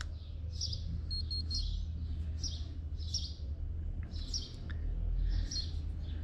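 Small birds chirping, a short high chirp every second or so, over a low steady rumble.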